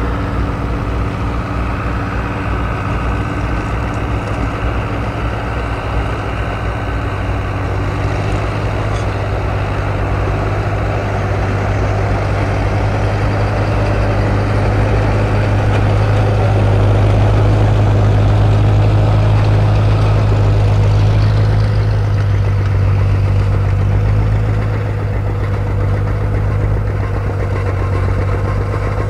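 Antique farm tractor engines running steadily under load while pulling plows through the soil. The sound swells to its loudest about two-thirds of the way through as a tractor passes close, then eases off.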